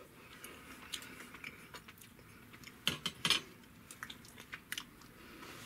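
A person chewing a bite of shelf-stable pouch roast beef, with soft wet mouth sounds and a couple of sharp clicks about three seconds in.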